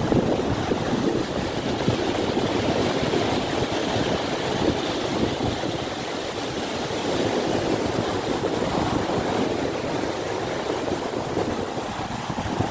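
Storm surf on the Black Sea: waves breaking and churning in a steady rush that swells and eases slowly.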